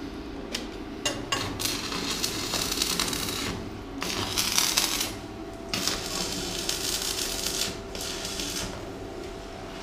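Electric arc welding on a steel pipe joint: the arc crackles and sizzles in three stretches of about two seconds each, with short breaks between, while tacking the joint. A steady machine hum runs underneath.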